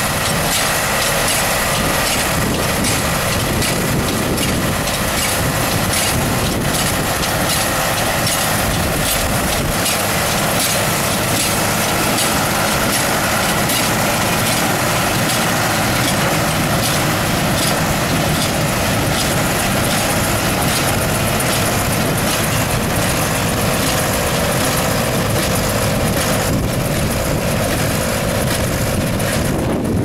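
Freeman 270 two-tie side-feed hay baler running while baling a windrow: its engine and plunger make a steady mechanical clatter of fast, close-spaced knocks over the running tractor.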